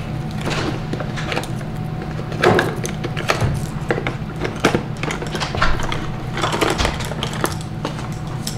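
Irregular crinkling and rustling of plastic candy cane wrappers being handled, over a steady low hum.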